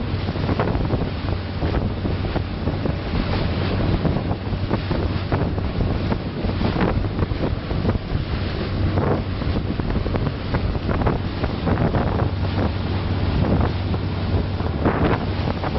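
Small passenger boat under way: a steady low engine hum beneath wind buffeting the microphone and water rushing and splashing past the hull.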